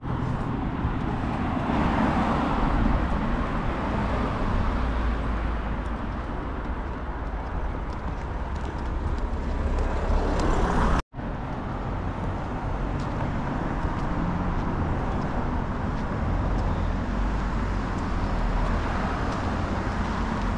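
Steady road and engine noise of a moving vehicle, with the sound cutting out abruptly and resuming about eleven seconds in.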